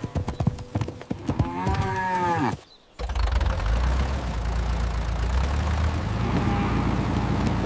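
Cartoon sound effects: a few knocks and clicks and a cow mooing once, about two seconds in. After a brief drop near three seconds, a steady low engine-like rumble takes over.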